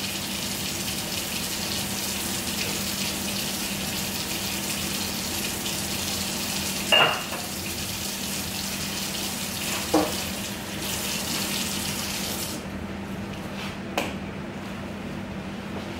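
Kitchen tap running into a sink while dishes are washed, with three clinks of dishes or utensils; the running water shuts off near the end.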